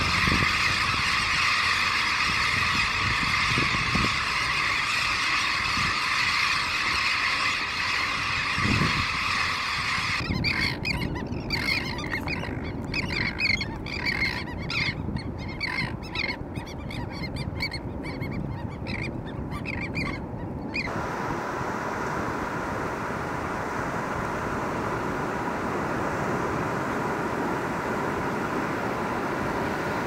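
A flock of elegant terns calling: for the first ten seconds a dense, unbroken chorus of many overlapping calls, then separate calls a few times a second. At about twenty seconds the calls stop and a steady wash of surf takes over.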